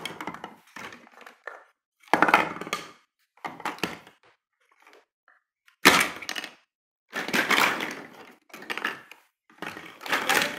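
Large plastic toy building blocks clattering and knocking together on a wooden floor, in a run of irregular bursts with a sharp knock about six seconds in.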